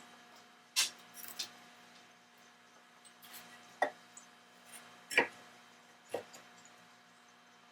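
Light, irregular taps and clicks of small metal lamp parts and tools being handled on a workbench, about seven in all, over a faint steady hum.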